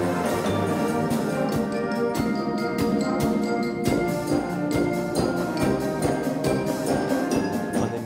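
Brass band playing: sustained brass chords and melody over percussion keeping a steady beat.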